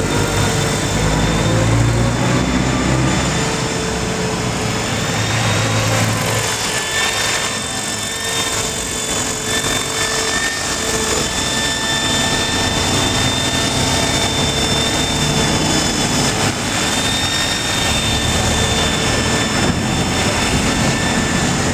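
Electric RC model helicopter (a Shuttle) in flight: the steady high whine of its electric motor and gears over the whir of the rotor blades.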